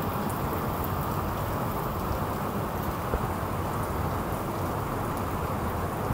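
Heavy rain falling steadily on a garden lawn and paved path: an even hiss with scattered drop ticks over a low rumble.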